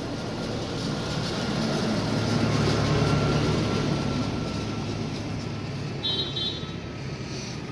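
Motor vehicle passing: a steady engine rumble that swells, loudest about three seconds in, then fades away. A brief high tone sounds about six seconds in.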